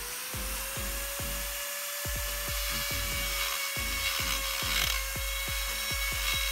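Ryu RDG6-1 electric die grinder running at steady speed with a constant high whine, its tungsten carbide burr grinding steel to tidy a rough weld corner.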